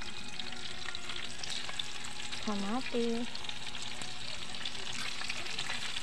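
Chopped garlic frying in hot cooking oil in a wok: a steady sizzle with small crackles.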